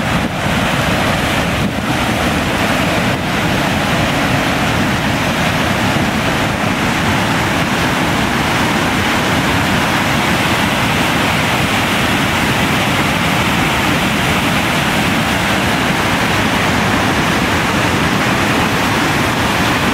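Floodwater pouring over the Derby Dam spillway on the Housatonic River and crashing into churning whitewater below: a loud, steady rush.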